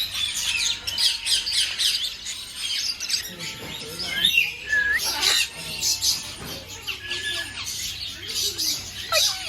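Many caged birds chirping at once in a dense, unbroken chatter, with an occasional louder squawk.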